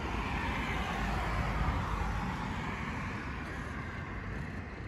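Road traffic: a passing car's noise swells and then fades, over a steady low rumble.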